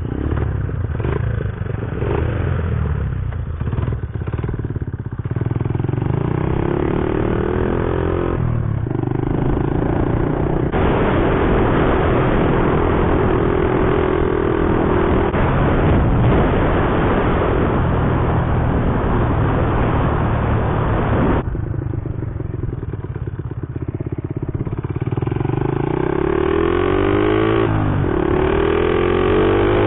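Small single-cylinder four-stroke Honda mini bike engines (CT70 and Z50) pulling away and riding along, revving up and dropping back as they shift up through the gears, with a steady rush of wind and road noise at speed in the middle. Near the end several engine pitches climb and cross as the bikes rev up.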